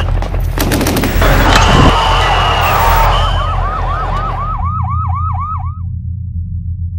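Police siren yelping in quick rising-and-falling sweeps, about three a second, over loud street and crowd noise with a few sharp bangs in the first second. The crowd noise drops away about two-thirds in, and the siren fades out soon after, leaving a low steady hum.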